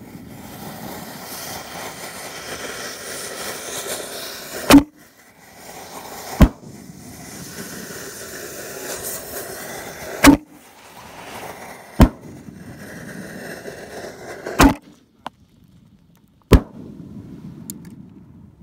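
Five-inch canister shell fireworks going off one after another from a rack: six sharp booms, one to four seconds apart, with a rushing noise that grows louder between them.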